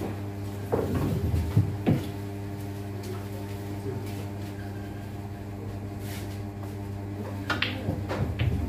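A steady low hum with a few sharp knocks and clunks, about a second in and again near the end.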